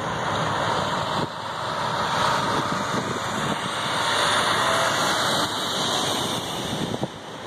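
Heavy dump truck driving past close by, its engine and tyre noise swelling to a peak about four seconds in and then easing, over steady road-traffic noise.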